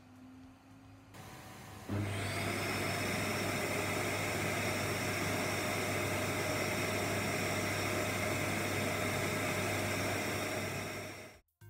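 Vacuum cleaner switched on, its motor whining briefly upward as it spins up, then running steadily with a rushing hiss and a high whine, and cut off shortly before the end.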